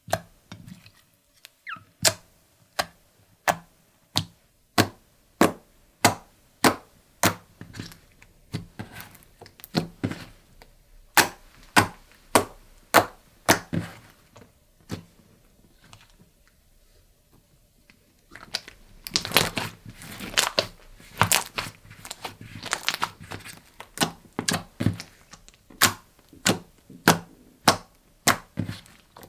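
Clear slime mixed with makeup being pressed and poked, giving sharp wet pops at about one and a half a second. After a short lull, about two-thirds of the way in, it turns to continuous crackling and squishing as the slime is squeezed and kneaded.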